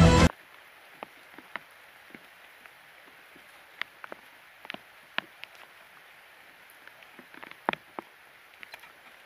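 Rain falling: a faint steady hiss with scattered sharp ticks of single drops striking close by, the loudest about three-quarters of the way through.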